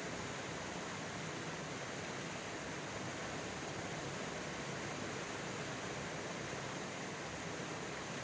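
Steady, unbroken rush of flowing floodwater.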